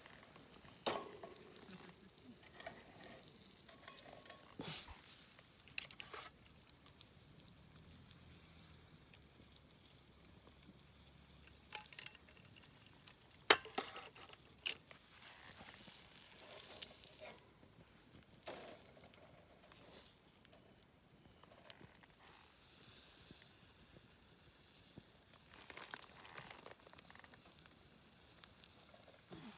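Quiet camp-cooking handling sounds: scattered sharp clicks and knocks of utensils and gear, the loudest about halfway through, over a faint crackle.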